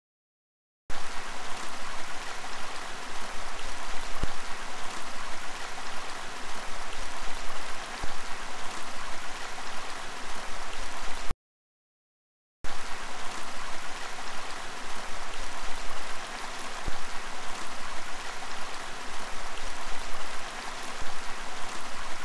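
Water pouring in a steady stream, a continuous splashing hiss. It starts about a second in, cuts off completely for about a second halfway through, then starts again.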